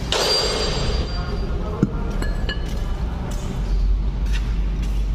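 A few light metallic clinks with short ringing pings as a rusty threaded ring and a cast-iron hand meat grinder are handled, over a steady low hum.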